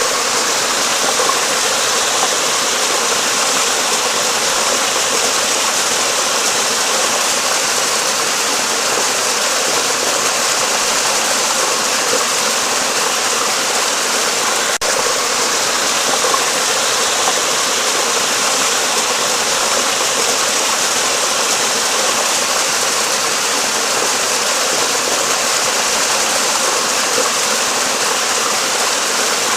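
Steady rushing of flowing stream water, with a momentary break about halfway through.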